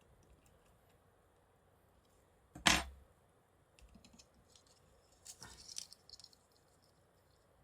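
Small clicks and taps of hand work inside a smartphone as a flex connector is pressed back onto the board. One sharp click comes a little under three seconds in, then a few fainter clicks and a short cluster of ticks later on.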